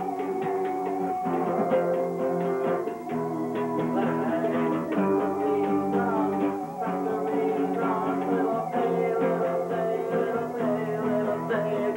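Live band music: an electronic keyboard and a guitar play chords that change every second or two over a steady beat.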